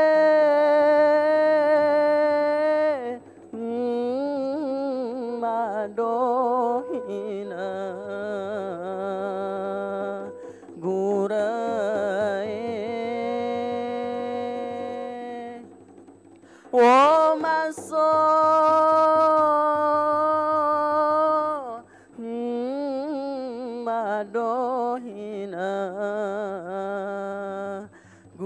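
A singing voice holding long, wavering, ornamented notes in phrases of a few seconds separated by short breaks, with a sharp upward vocal glide about halfway through. Beneath it runs a faint steady low hum.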